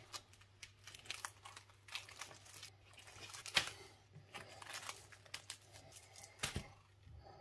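Duct-taped plastic sandwich bags crinkling and rustling as they are handled and lifted off a plastic cutting board: a run of faint crackles and clicks, with a louder crackle about three and a half seconds in and a low thump about six and a half seconds in.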